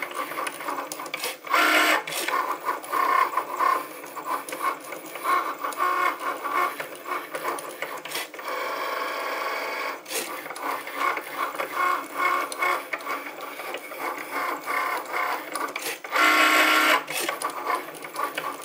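Cricut Maker cutting machine cutting stickers with its premium fine-point blade. Its motors whir in quick stop-start runs as the carriage moves and the rollers feed the mat, with a steadier stretch mid-way and two louder stretches, about a second and a half in and near the end.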